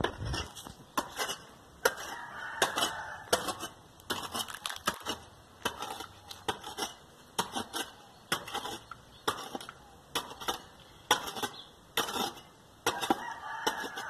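A blade repeatedly chopping and scraping into dry, hard sandy soil to dig a hole: sharp strikes, about one or two a second, unevenly spaced.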